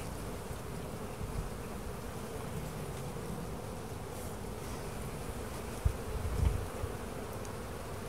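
Honeybee colony humming steadily, heard close up through a microphone lying on the top bars of the open hive among the bees. A couple of brief low bumps come about six seconds in.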